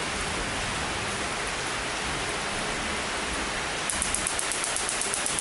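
Continuous-spark igniter firing across its two wire leads: a rapid run of sharp snapping clicks, about eight a second, starting near the end, over a steady hiss.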